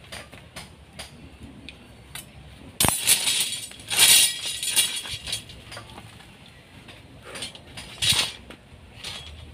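Steel reinforcing bars clinking and clanking while stirrups are bent by hand. There is a sharp clank about three seconds in, a couple of seconds of rattling metal after it, and another clank near the end.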